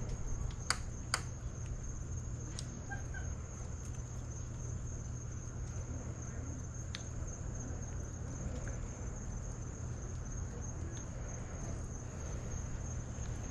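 Insects singing one steady high-pitched tone without a break, over a steady low rumble. Two sharp clicks come about a second in.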